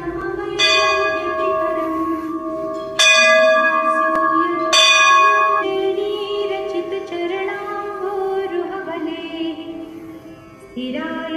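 Hindu temple bell struck three times, each stroke ringing on with a bright metallic tone, the last two about a second and a half apart. Music with singing plays underneath.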